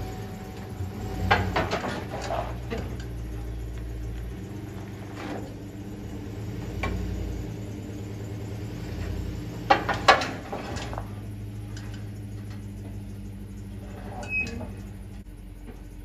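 Vehicle engine running at low speed as a Chevrolet Tahoe creeps up metal ramps onto a flatbed trailer, with several clunks and knocks from the ramps and trailer deck, the loudest cluster about ten seconds in.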